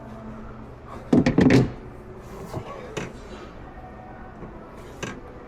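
Hard plastic clacks and snaps in a quick cluster about a second in, then a few single clicks: a large Milwaukee Packout rolling tool box having its latches undone and its lid opened.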